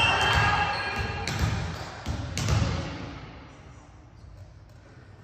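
Crowd cheering and chatter in a school gym dying away, with a few sharp thuds about one and two seconds in, typical of a volleyball being bounced on the hardwood floor before a serve. The hall then goes quiet.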